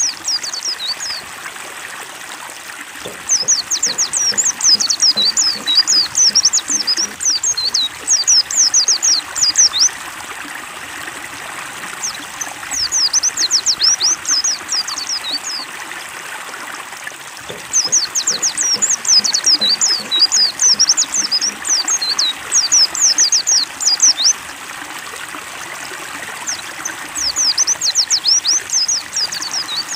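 White-eyes (pleci) singing in several bursts of rapid, high, twittering notes, each a few seconds long with short pauses between, over steadily trickling stream water.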